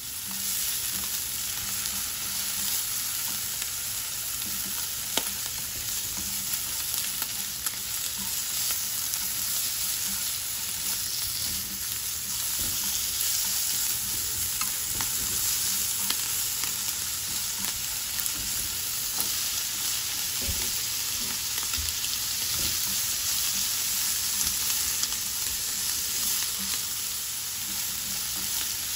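Bacon strips, and later julienned green peppers, sizzling steadily in oil in a nonstick frying pan. Cooking chopsticks stir the food, with occasional light clicks and taps against the pan.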